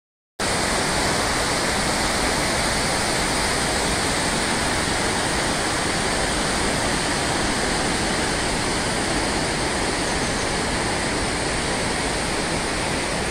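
Rushing water of a rocky mountain stream, a steady even rush that cuts in suddenly about half a second in.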